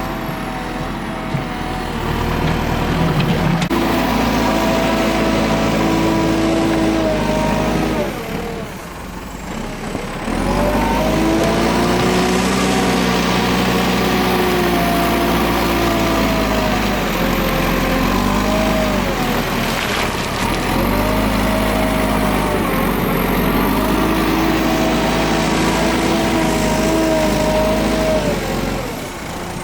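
JCB 3CX backhoe loader's diesel engine working, its pitch rising and falling again and again as the revs change under load. The revs drop briefly about eight seconds in and again near the end.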